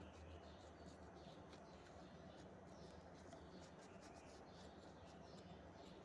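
Near silence: faint room tone with a low hum and a few faint, short ticks.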